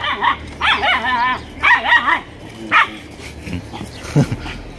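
A dog barking in short, high, wavering barks, four of them about a second apart, then falling quiet about three seconds in.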